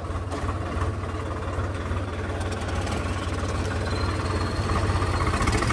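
Swaraj 855 tractor's diesel engine running under load in a tractor tug-of-war, heard from the driver's seat as a steady low rumble that grows slightly louder, with a John Deere 5039D's engine running alongside.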